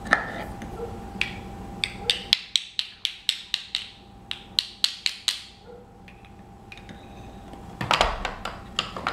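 Wooden toy bolt and nuts knocked together: a quick run of sharp wooden clacks, about four a second, for three seconds or so. Near the end, a clatter of wooden pieces being rummaged in a wooden toy toolbox.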